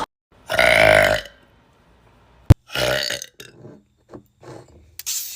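A girl burping: one long, loud burp lasting about a second, then a sharp click and a second, shorter burp, followed by a few short, quieter sounds.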